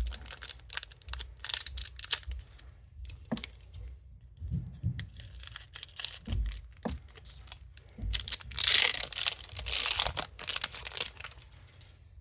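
Foil wrapper of a Pokémon card booster pack being handled and torn open: a string of crinkling and tearing noises, with the longest and loudest tear about eight to ten seconds in.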